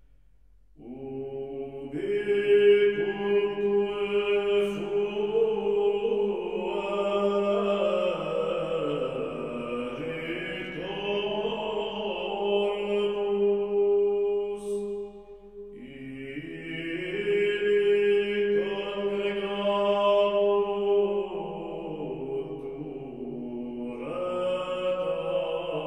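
Background music of slow chanting, voices holding long sustained notes in phrases. It comes in about a second in and dips briefly about two-thirds of the way through before the next phrase.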